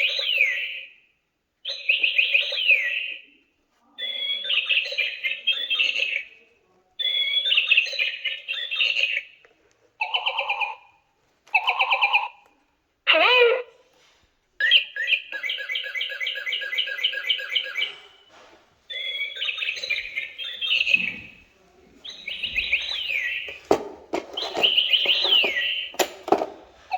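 Broken electronic toy sounding off on its own from its small speaker: bursts of chirping, warbling electronic tones with pitch glides, one after another with short pauses. A few knocks near the end.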